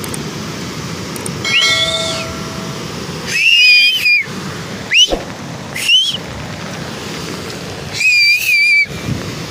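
Loud two-finger whistling, five whistles in all: a short arching one, a longer warbling one, two quick upward whoops, and a final long warbling whistle. Under them runs a steady rush of water pouring over a dam spillway.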